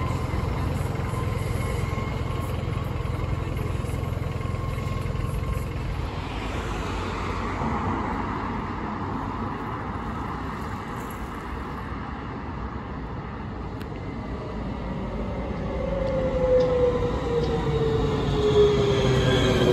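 Nancy's rubber-tyred Bombardier TVR guided tram running on the street in road mode under its trolley poles. A low rumble with a steady electric whine fades as one vehicle moves away; in the last few seconds another approaches, growing louder, its whine falling steadily in pitch.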